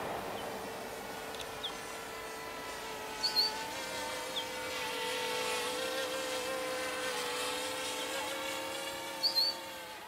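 Quadcopter drone's propellers whining steadily, a hum of several pitches that wavers slightly. Two short high chirps, from a bird, come about three seconds in and near the end.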